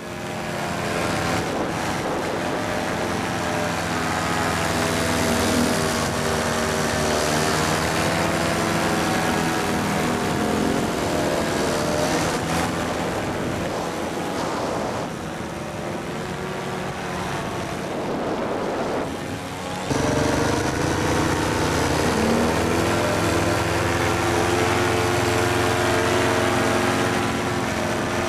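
Paramotor engine and propeller running steadily in flight, its pitch drifting up and down with the throttle. The sound changes abruptly about fifteen and twenty seconds in.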